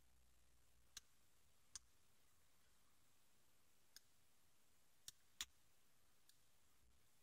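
Faint, irregular metallic clicks of a lock pick working the pin stack inside a Master 220 padlock's core, about six in all. The pins are not setting: the picker gets little feedback.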